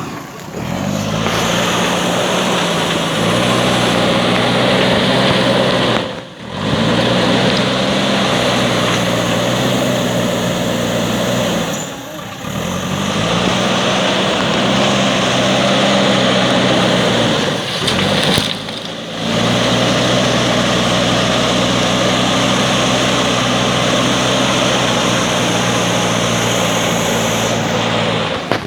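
JCB 3DX backhoe loader's diesel engine running under load, its pitch shifting up and down as it works. The sound drops away briefly three times.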